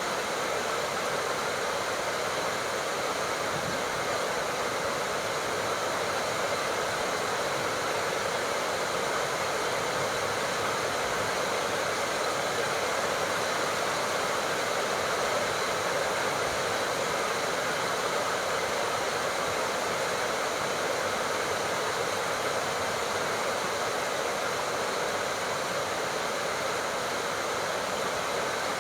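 Steady, heavy tropical rain falling without a break, an even hiss.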